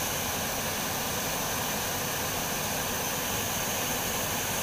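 Steady rushing of river water pouring over a weir, even throughout with no separate events.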